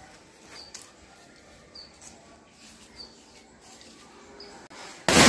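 Birds chirping faintly as the fuse burns. Then, near the end, the Ananda Mighty Bomb firecracker explodes with a sudden, very loud bang.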